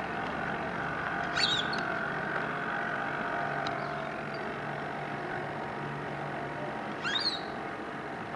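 Steady hum of a radio-controlled model boat's motor running, with two short, high bird calls, one about a second and a half in and one near the end.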